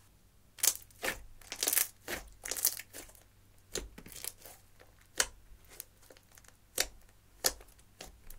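Thick red slime, clear slime with crumbled eyeshadow mixed in, being squeezed and pressed by hand, giving irregular sharp wet crackles and pops that start about half a second in.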